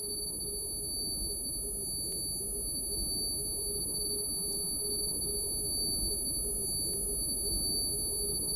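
Steady high-pitched electronic ringing, two thin tones held unchanged, over a low wavering hum and rumble.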